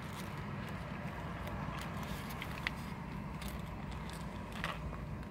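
A person chewing a banh mi sandwich and biting into it near the end, with faint crackles of the paper wrapper, over a steady low hum in the car cabin.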